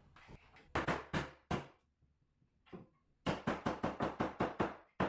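Sharp knocks on wood as a glued center stretcher is knocked down onto its domino joints: three knocks about 0.4 s apart a second in, then a quick run of about six a second over the last two seconds.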